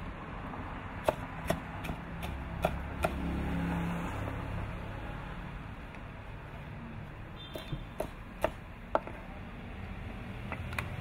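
Chinese cleaver chopping crisp-fried pork belly on a wooden cutting board: six sharp knocks about every 0.4 s, a pause, then another uneven run of chops in the second half.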